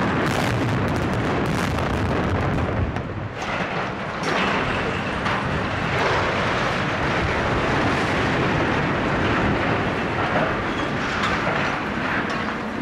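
Explosive demolition of two reinforced concrete silos. The last charges crack sharply a few times in the first few seconds, then the silos topple and crash to the ground in a long, continuous rumble of breaking concrete.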